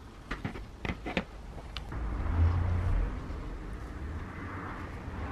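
A handful of light clicks and knocks as an angle grinder's aluminium gear housing is handled, then a steady low rumble with a hiss from about two seconds in.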